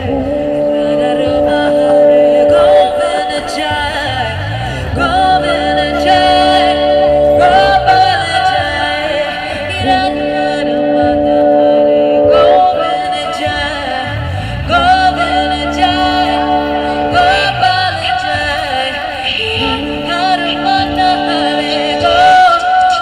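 A busking duo playing a song live: sung melody over sustained accompanying chords that change every few seconds.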